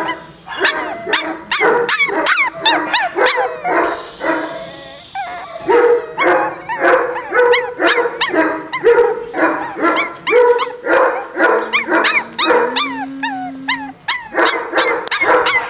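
Maltese puppies yapping over and over in short, high-pitched barks, about two or three a second with brief pauses. A steady low tone sounds for a couple of seconds near the end.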